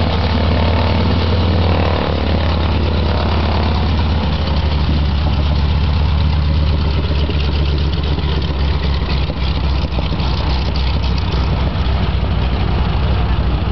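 Stearman biplane's radial engine running at low taxi power, propeller turning: a loud, steady low rumble that eases slightly about two seconds in as the plane moves past and away.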